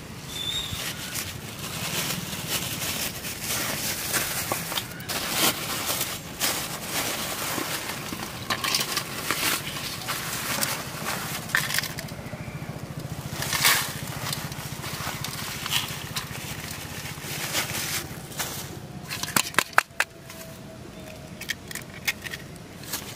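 Black plastic bag crinkling and rustling as it is opened, with dry grain poured out of it onto a steel plate. Near the end come a few sharp taps as an egg is cracked against the plate.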